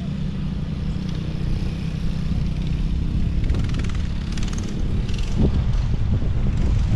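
ATV engine running as the quad is ridden around a dirt track, with wind rumbling on the microphone.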